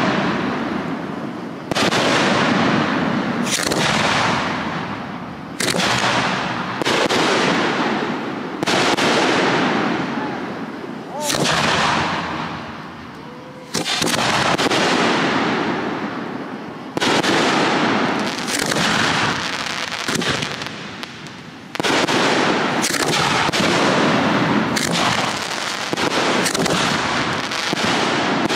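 Aerial firework shells bursting one after another, about every one to two seconds, each a sharp bang that trails off over a second or two.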